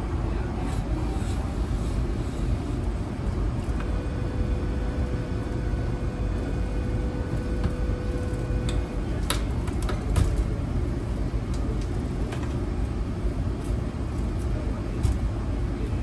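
Steady low rumble of HVAC air-handling equipment moving air through a sheet-metal duct. Over it come a few light clicks and taps of a screwdriver and fingers in the plastic housing of a duct smoke detector, the sharpest about nine and ten seconds in.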